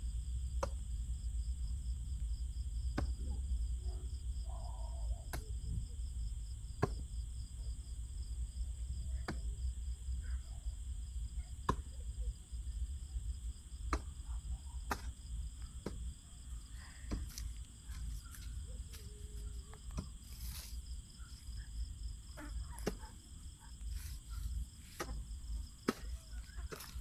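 Crickets chirping at night: several steady high-pitched trills, one pulsing quickly, over a low rumble on the microphone, with scattered sharp clicks.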